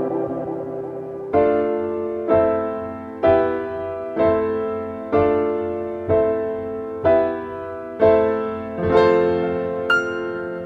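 Instrumental music: a held chord fades out, then a keyboard with a piano sound strikes the same chord about once a second, each one ringing and dying away. Higher single notes come in near the end.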